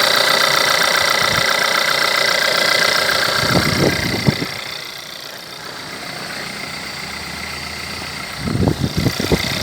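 Turbocharged four-cylinder 1.4 TSI petrol engine idling with the knocking sound its owner is recording on a high-mileage engine whose timing chain was recently changed. A few low thumps come about four seconds in and again near the end, with the engine sound quieter between them.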